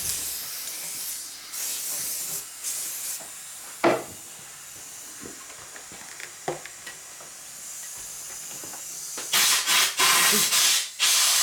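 Hissing sprays of aerosol hairspray and compressed air from an air-compressor blow gun, used to slide a rubber hand grip onto a motorcycle handlebar. Short sprays come early, with a single knock about four seconds in, and loud repeated air blasts start near the end.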